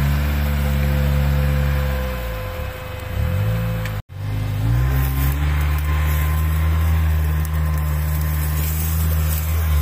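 Off-road vehicle engine running at steady high revs under load. The pitch sags and wavers about two and a half seconds in, the sound cuts out abruptly for an instant at about four seconds, then it climbs back to the same steady note and eases off at the very end.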